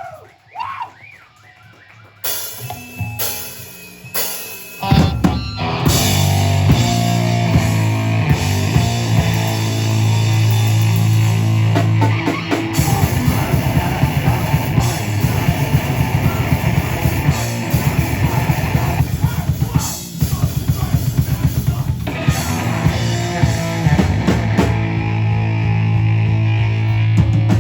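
A heavy rock band playing live, with distorted electric guitars, bass and a drum kit. It opens with a few separate stabs and hits, then the full band crashes in about five seconds in and plays on loud and dense, with a short break near the middle.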